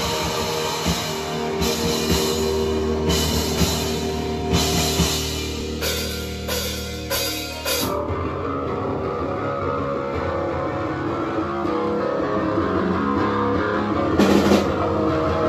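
Live rock band playing: electric guitar and bass with a drum kit hitting crashing cymbals. About halfway through the drums drop out and the guitars ring on, with a single cymbal crash near the end.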